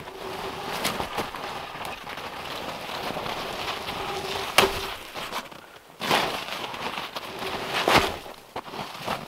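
Crunching footsteps in snow and the scrape and knocks of a heavy cherry log being wrestled upright and tipped over onto the snow, with a few sharp knocks, the loudest about halfway through.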